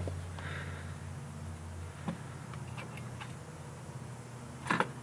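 A few faint clicks and taps of metal from gloved hands working the last bolts and taking hold of a transmission valve body, the loudest cluster near the end, over a low steady hum.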